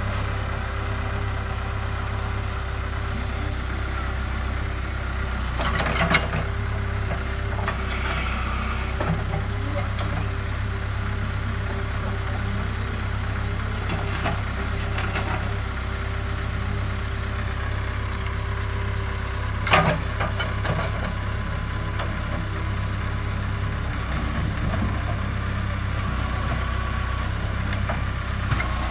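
JCB 3CX backhoe loader's diesel engine running steadily under load while the backhoe arm drags soil. A few sharp knocks sound over it, the loudest about twenty seconds in.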